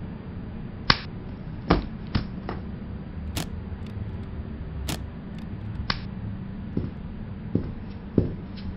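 Scattered knocks and clicks, about ten at irregular intervals, from a person moving about and handling a laptop, over a steady low hum.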